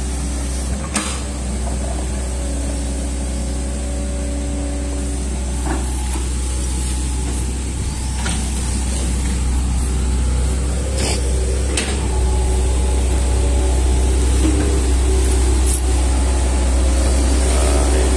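Hitachi hydraulic excavator's diesel engine running steadily as the machine digs and slews, with a few sharp clanks from the working arm and tracks. It gets louder about twelve seconds in.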